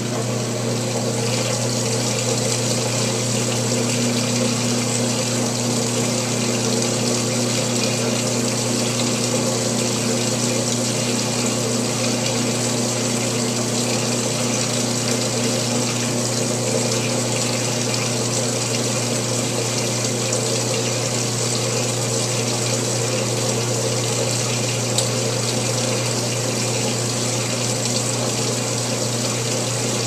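Whirlpool top-loading washing machine filling with water: a steady rush of water into the tub over a low, even hum.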